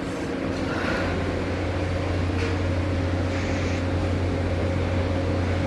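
Engine of heavy demolition machinery running steadily: a constant low hum with a fainter higher tone over it, and a few soft brief noises.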